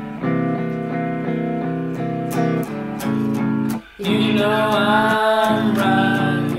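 Music: a song of repeated plucked-string notes over held chords, briefly dropping out just before four seconds in, after which a wavering higher melody line joins.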